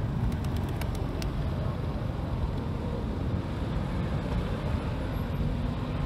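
Steady low rumble of city road traffic, with a few faint sharp clicks in the first second or so.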